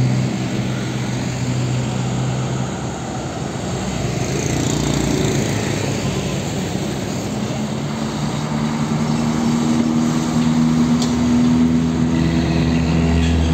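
Diesel engines of fuel tanker trucks, a Hino Ranger rigid tanker and a tractor with a tank semi-trailer, running as they drive past close by, over general road traffic. The engine drone is steady, and its note sits higher in the second half.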